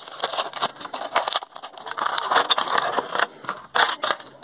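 Hot Wheels blister pack being torn open by hand: the clear plastic blister crinkling and crackling in irregular bursts as it is peeled off the cardboard card.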